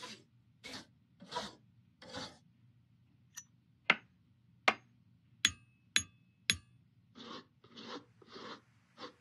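Hand file rasping on a metal rifle part in even strokes, about one every three-quarters of a second. In the middle the filing is broken by five sharp, ringing metallic clicks about half a second apart, the loudest sounds here.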